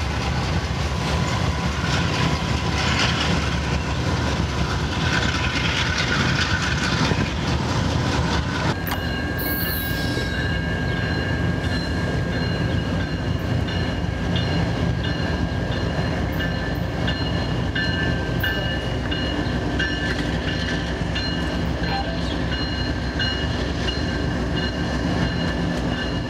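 BNSF diesel locomotives running by at low speed, a steady engine and rail rumble. About nine seconds in the sound changes abruptly to a second diesel train approaching, its rumble joined by thin, steady high-pitched squealing tones.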